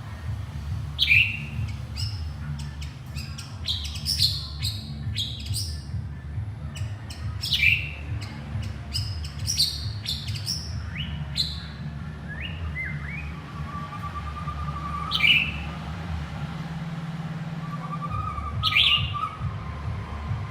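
White-rumped shama calling to its mate: a string of sharp chirps and whistled notes that sweep quickly downward, the loudest about a second in, near the middle and near the end, over a steady low hum.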